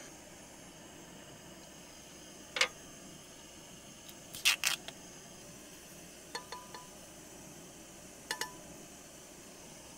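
Stainless steel camp cups and a Jetboil cup clinking and knocking against each other and the metal tailgate table, over a steady faint hiss. There is a single knock a few seconds in and a loud cluster of three about halfway. Near the end come lighter clinks that leave a short metallic ring.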